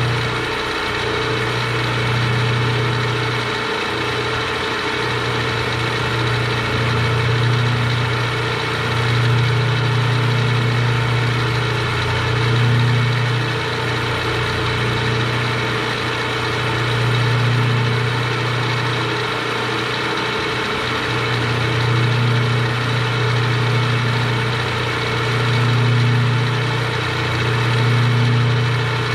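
Milling machine running at 850 RPM, a 3/16-inch end mill cutting a slot in metal; a steady hum that swells and eases every few seconds.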